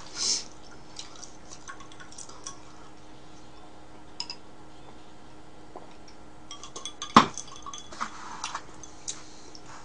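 Light clicks and clinks of a stemmed drinking glass and tableware, with one sharper knock about seven seconds in as the glass is set back down on the table. A faint steady hum runs underneath.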